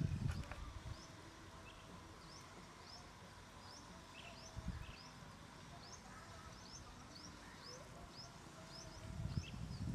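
Small birds chirping: short, high, upward-sliding notes repeated one to two times a second, over faint outdoor background. A single soft thump about four and a half seconds in.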